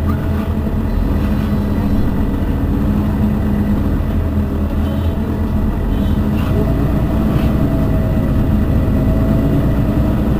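Mercedes-Benz Citaro facelift city bus idling at a standstill: a steady engine hum, with a faint whine joining in about six seconds in.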